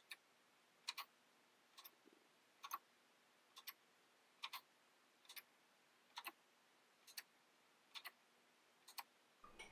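All-3D-printed plastic clock ticking steadily, its pallet-fork escapement giving a short double click a little more often than once a second. It is running freely under its own power, its shafts on small ball bearings.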